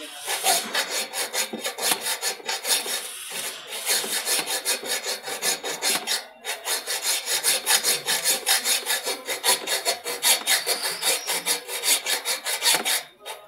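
Hacksaw blade in a small hand grip sawing through the side-stand stopper in quick back-and-forth strokes, breaking off briefly about six seconds in.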